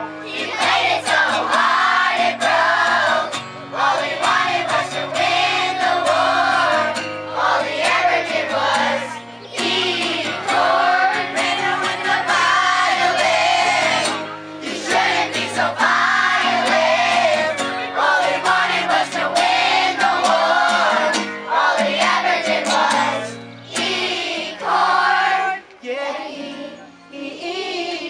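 A group of children singing a silly song together, accompanied by a strummed acoustic guitar, with short breaks between sung lines.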